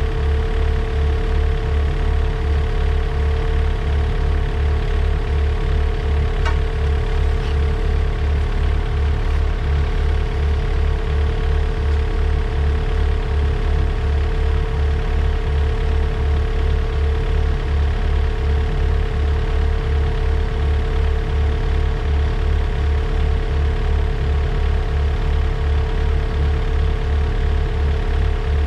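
Takeuchi TB145 mini excavator's diesel engine idling steadily, with an even low throb and a steady whine over it.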